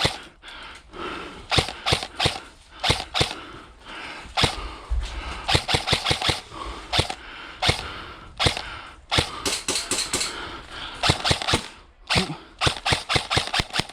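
Airsoft guns firing in quick strings of sharp shots, several strings broken by short pauses.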